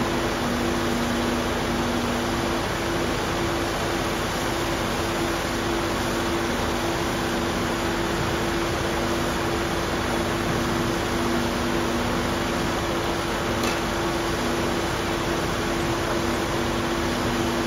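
Construction machinery running steadily: a constant engine drone with two steady hum tones and no distinct bucket impacts, as an excavator works the soil.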